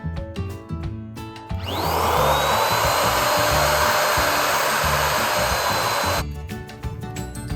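Electric balloon inflator switched on for about four and a half seconds, a steady rush of air with a motor whine that rises as it spins up and then holds, cutting off suddenly. Background music with a steady beat plays throughout.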